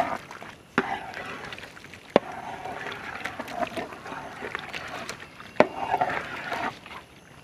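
Thick chicken masala sizzling and bubbling in a large metal cooking pot as a ladle stirs it, with three sharp knocks of the ladle against the pot: about a second in, about two seconds in, and again past five seconds.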